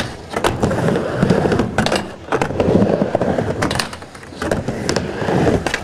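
Skateboard wheels rolling across a mini ramp, a rumble that swells and fades as the rider rides back and forth. Several sharp clacks of the trucks and tail hitting the coping and ramp cut through it.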